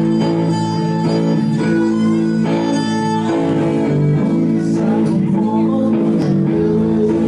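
Live rock band playing an instrumental passage on two electric guitars and a violin, with held chords that change about three seconds in.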